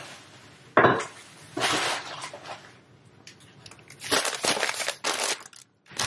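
Plastic produce bags and clamshell containers rustling and clattering as groceries are handled and set down on a granite countertop, with a sharp knock about a second in.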